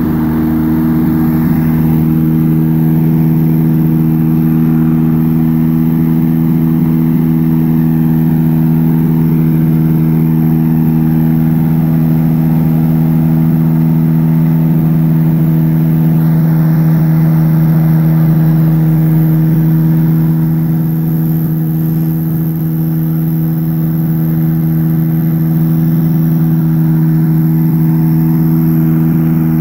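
Quicksilver ultralight's engine running steadily at idle, a constant low hum that eases slightly about two-thirds of the way through.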